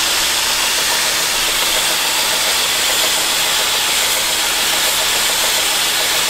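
Radius Master belt grinder running at a moderate speed with a fine ceramic belt over a small contact wheel, a steel travisher blade held flat against it: a steady grinding hiss as the back of the blade is flattened and polished.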